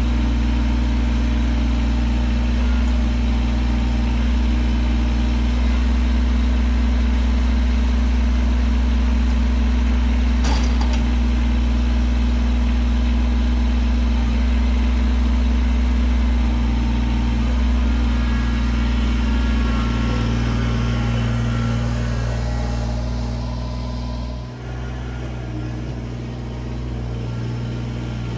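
Kubota BX compact tractor's three-cylinder diesel engine running steadily as the tractor drives off, fading somewhat after about twenty seconds as it moves away.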